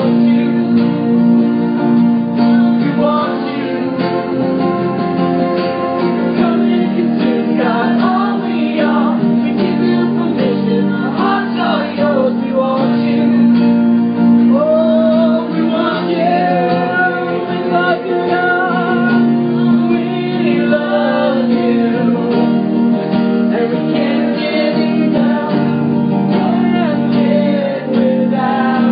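A small group singing a worship song together over strummed acoustic guitars.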